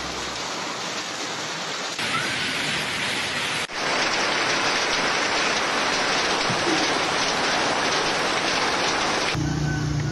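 Marble-sized hail mixed with rain pelting down onto a road and roofs, a dense steady hiss that steps louder about two seconds in and again just under four seconds in. Near the end it gives way to a brief engine hum.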